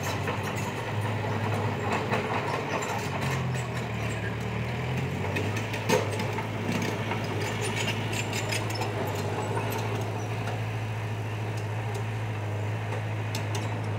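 Heavy diesel engine of construction machinery running steadily, with one sharp metallic knock about six seconds in.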